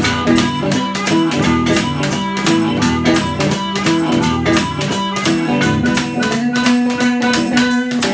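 Chicago-style blues played instrumentally: guitar picking over a steady, quick rhythm scraped on a washboard.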